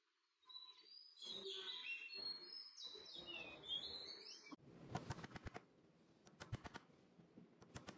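Bottle of Titebond II wood glue being squeezed, glue and air sputtering out of the nozzle with squeaky, chirp-like sounds, cut off sharply after about four seconds. Short wooden clicks and taps follow as dowels are pushed into the glued holes.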